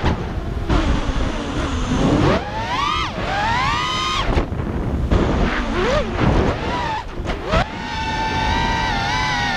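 A 5-inch FPV quadcopter's four brushless motors (ZMX V3 2206 2300kv on HQ 5x4x3 props) whining, the pitch sweeping sharply up and down with each throttle punch, with a rush of wind and prop noise between the bursts. Near the end the motors hold a steady high whine.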